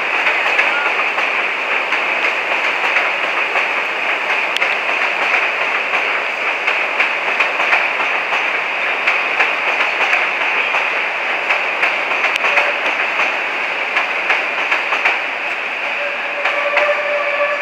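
Chicago 'L' train of stainless-steel cars running over the elevated steel structure: a loud, steady rumble and clatter, with rapid clicks from the wheels crossing rail joints. A steady tone joins near the end.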